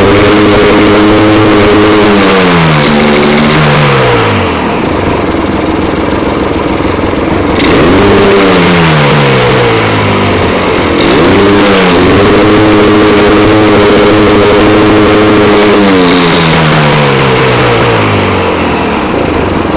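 Vehicle engine revved and held, then let fall back to low revs, three times over: high at the start, dropping after about two seconds, rising again around eight and eleven seconds, held high, then falling near the end. The uploader takes it for a misfire.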